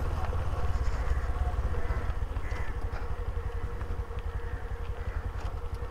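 Motorcycle running at low speed on a gravel dirt road, heard from the rider's seat with a heavy low rumble. It grows gradually quieter as the bike slows.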